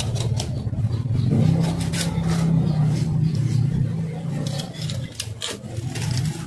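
A steady low engine drone, like a nearby vehicle running, lifting slightly in pitch after about a second. Over it come short scrapes and taps of a knife cutting through a small fish's gills against a wooden chopping block.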